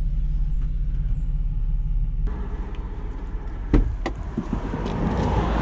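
Van engine running with a low, steady rumble heard from inside the cab. About two seconds in, the rumble changes and a wider noise comes up, followed by a sharp knock and a lighter click a moment later.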